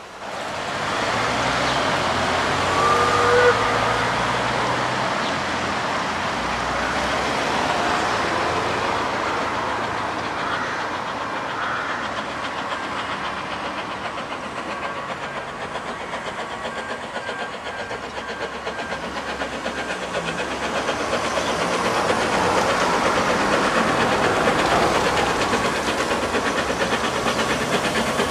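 Isle of Man Railway Beyer Peacock 2-4-0T narrow-gauge steam tank locomotive working a train toward the listener. Its exhaust and running gear grow louder over the last several seconds as it comes closer.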